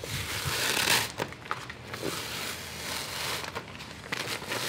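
Wide green masking tape being peeled off a fiberglass boat deck and crinkled in the hand, in a run of short rips and crackles.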